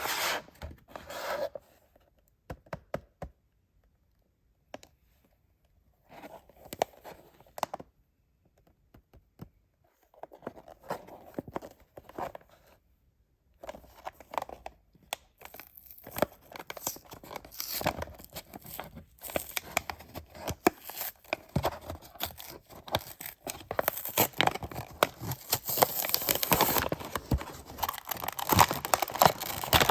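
Toy packaging being torn open and crinkled by hand. It starts as short spurts of tearing and rustling with quiet gaps, then becomes nearly continuous and louder from about halfway through.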